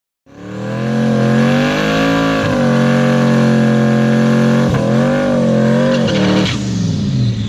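Car engine held at high, steady revs, its pitch dipping briefly twice, then dropping and falling away near the end.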